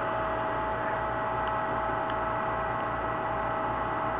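A steady mechanical hum with several constant whining tones over a regular low throb.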